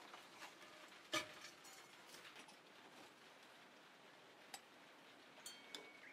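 Near silence broken by a few sharp clicks and clinks of fired stoneware pots being handled with gloved hands, the loudest about a second in.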